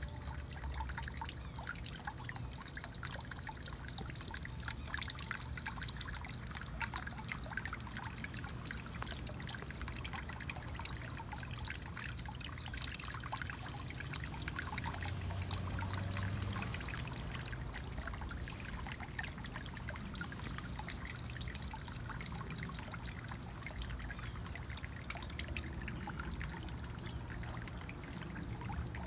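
Steady trickling water, a continuous dense patter of small splashes.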